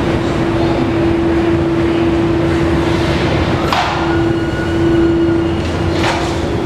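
1996 Kawasaki GPZ1100's inline-four engine idling steadily, with a constant hum over the low rumble. Two short knocks come through, about four and six seconds in.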